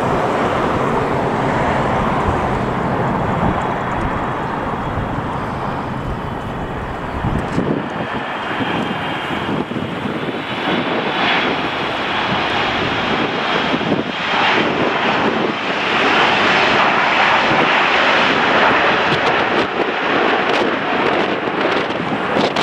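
Jet airliner engines running as a plane moves past near the runway, a steady rushing noise that grows louder and brighter in the second half. Gusts of wind buffet the microphone throughout.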